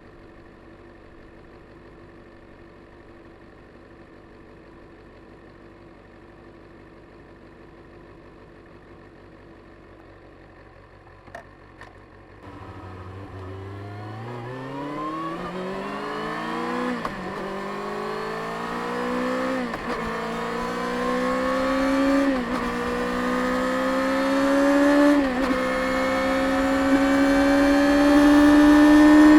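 Stock 2024 Kawasaki Ninja ZX-6R's 636cc inline-four idling quietly. After two short clicks, it pulls away and accelerates, its pitch rising and dropping back at four quick upshifts, getting steadily louder.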